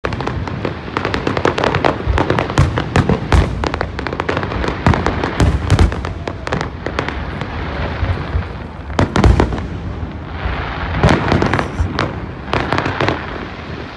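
Fireworks exploding in rapid succession, a dense crackling of many sharp bangs that thins out after about seven seconds into separate loud booms.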